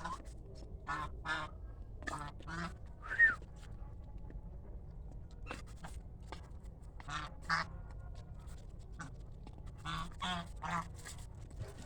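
Geese honking: a dozen or so short calls, often in quick pairs or threes, the loudest about three seconds in.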